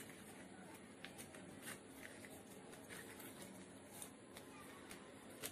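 Faint, scattered rustles and crinkles of origami paper being folded and pressed into creases by hand on a desk, over a low steady hum.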